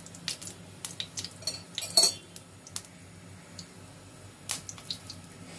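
Scattered light clicks and clinks of kitchen utensils, with one louder ringing metallic clink about two seconds in, over a faint steady low hum.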